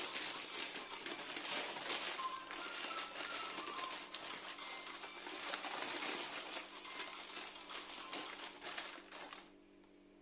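Parchment paper crinkling and rustling as a sponge cake sheet is rolled up inside it by hand, a dense crackle that stops about a second before the end.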